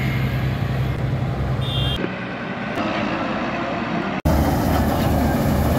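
Diesel engine of a self-propelled combine harvester running steadily as the machine drives along a road. The sound changes abruptly twice, about two seconds in and again about four seconds in, where separate clips are spliced together.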